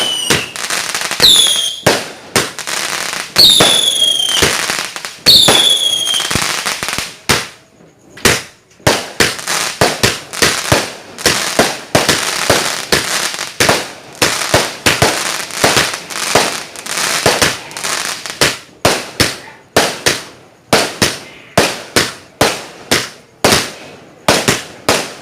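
Firework battery firing: first four shots about two seconds apart, each with a falling whistle, then a rapid string of sharp cracking bangs, two to three a second, getting quicker near the end.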